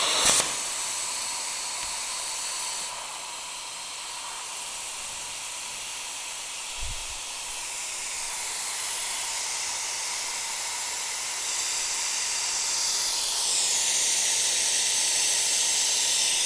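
Air plasma torch on a CNC plasma table finishing a cut through stainless steel tubing. The arc cuts off about half a second in, and a steady hiss of air from the torch carries on after it.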